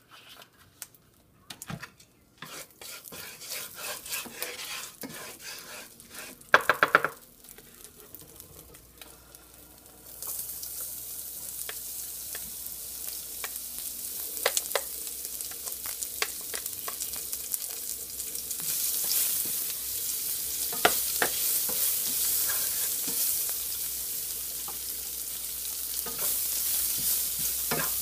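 Sliced onions frying in hot oil in a nonstick skillet, stirred with a wooden spatula that knocks and scrapes against the pan. Over the first ten seconds come scattered knocks and one brief loud clatter. Then the sizzle starts suddenly and grows louder in the second half, with occasional sharp spatula taps.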